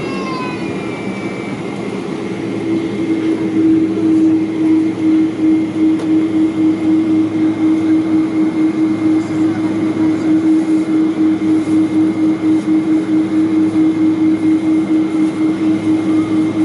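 Pratt & Whitney PW4000-series turbofans of a Boeing 777-200ER heard from inside the cabin at taxi power: a steady engine drone with a held low hum and a faint high whine. It grows louder a few seconds in, then throbs evenly about two to three times a second.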